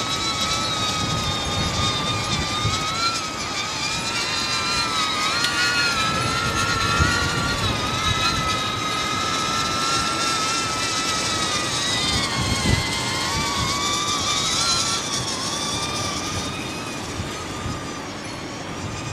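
Cinewhoop drone's brushless motors and ducted propellers whining steadily. The pitch wavers up and down as the throttle works to hold the quad against strong wind gusts, with low wind buffeting underneath.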